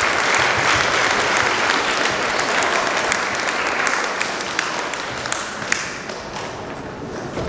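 An audience clapping, a dense even applause that gradually dies away over the last few seconds.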